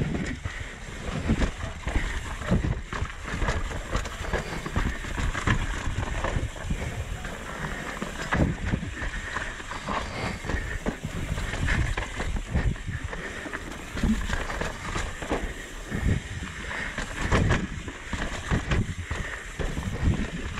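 Mountain bike descending a rough dirt and root trail at speed: tyres rolling over dirt, with frequent sharp knocks and rattles as the bike hits bumps, roots and rocks. Wind noise on the microphone throughout.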